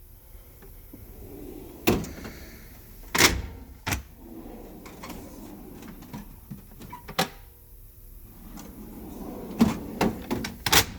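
Toolbox drawers on a Snap-on EPIQ tool chest sliding open and shut, a low rolling sound broken by sharp knocks and clunks as the drawers stop and close, several in quick succession near the end.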